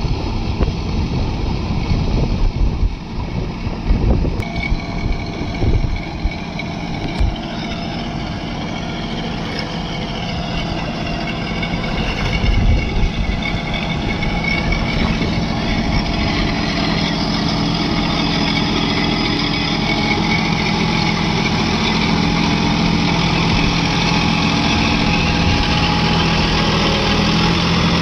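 John Deere 5210 tractor's diesel engine running steadily as the tractor churns through deep mud in a flooded paddy field, with wind gusting on the microphone over the first several seconds. The engine grows louder and more even in the second half.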